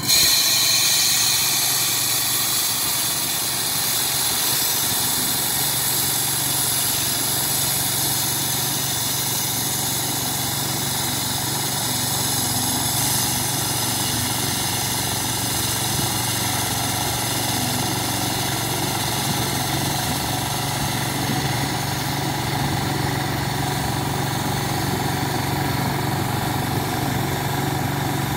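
Core cutting machine's small engine running steadily while its water-fed core barrel drills down into the bituminous DBM pavement to cut a core. The sound comes in abruptly at the start and holds an even, constant hum.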